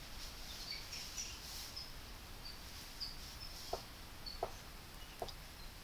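Faint knocks of capuchin monkeys breaking open jatobá fruit in the woods, a sharp knock about every three-quarters of a second from a little past the middle. Short high chirps come and go through the first two-thirds.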